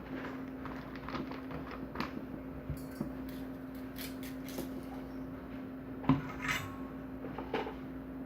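Light metallic clinks and taps of small hard objects being handled on a soldering workbench, with a sharp knock about six seconds in followed by a brief ringing clink, over a steady low hum.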